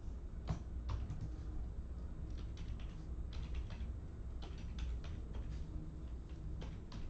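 Typing on a computer keyboard: irregular quick key clicks over a low steady hum.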